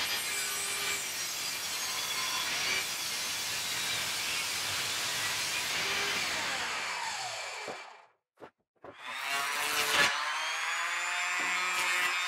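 Table saw ripping a thick softwood board, the blade cutting steadily, then winding down with a falling whine. About nine seconds in, a handheld power sander starts up, rises to speed and runs steadily.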